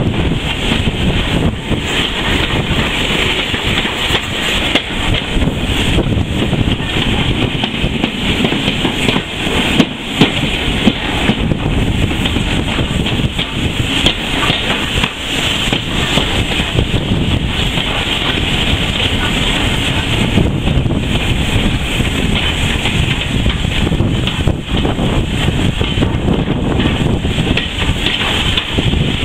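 Heritage railway train running, a steady noisy rumble heavily buffeted by wind on the microphone, with a few sharper bangs about ten seconds in.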